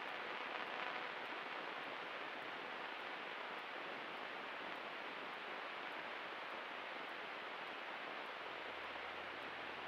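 Steady, faint hiss of a light aircraft's intercom audio feed, with no clear engine note.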